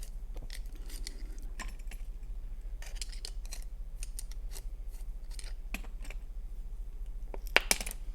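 Small metal clicks and scrapes from a screwdriver working the screws in the bottom of a 10-lever padlock and the lock being handled, with two sharper clicks near the end.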